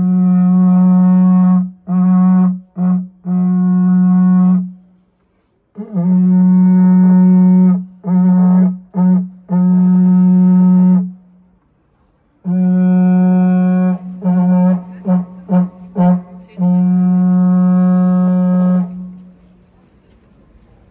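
A tower warden's signal horn blown on one steady low note. The same signal sounds three times: a long blast, a few short stabs, then another long blast.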